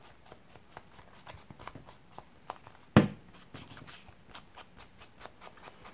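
Ink blending tool's foam pad dabbed and rubbed along the edges of a paper card: soft scattered taps and scuffs of foam on paper, with one sharper knock about three seconds in.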